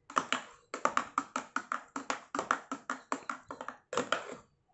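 Steel spoon clinking rapidly against the side of a steel bowl as it stirs frothy milk curdled by Eno, about five taps a second.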